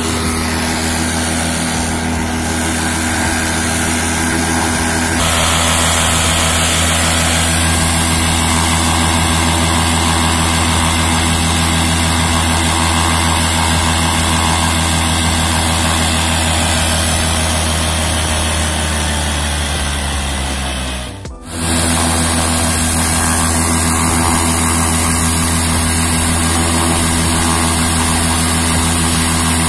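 800 cc paramotor engine and propeller running steadily in a ground run: a loud drone with a strong low hum. Late on, its pitch sags and the sound breaks off sharply for a moment, then it runs steadily again.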